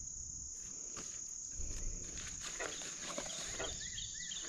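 Steady high-pitched chirring of crickets or other insects, with a few faint rustles and knocks in the middle. Near the end a run of short, quickly repeated chirps begins.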